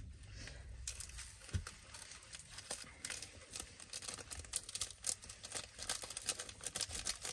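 Instant-noodle seasoning sachets crinkling as they are torn open and squeezed out over the noodles, in many small irregular crackles, with one sharper knock about a second and a half in.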